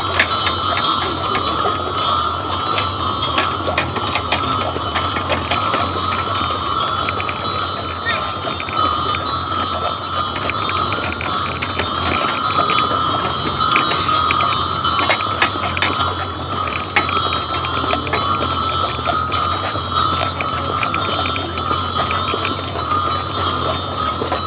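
Harness bells on a team of horses jingling steadily as the horses walk, pulling a wagon.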